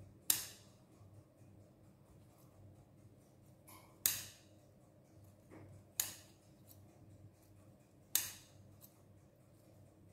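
Crusts being cut off slices of toasted sliced bread: four crisp cutting snips about two seconds apart.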